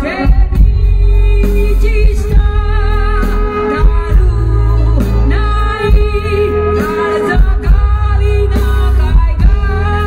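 A woman singing live into a microphone with a band over a stage PA. Her voice bends and wavers in pitch over steady heavy bass and drum hits.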